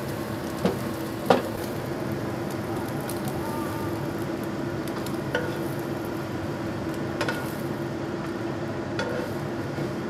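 Egg omelette sizzling in oil in a nonstick pan, over a steady low hum. A wooden spatula scrapes the pan and knocks against it twice about a second in, with a few lighter clicks later.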